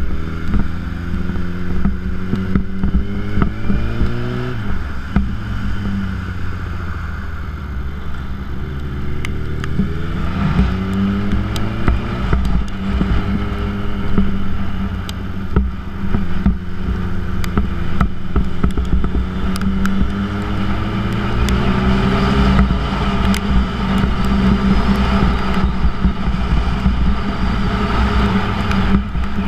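2006 Yamaha YZF-R1's inline-four engine through a Yoshimura titanium exhaust, accelerating hard through the gears: the revs climb, drop back at each shift and climb again several times. Wind rush builds as speed rises in the second half.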